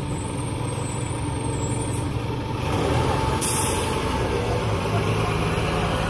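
School bus engine running with a steady low rumble that grows louder about three seconds in. A short, sharp air hiss comes at about the same time.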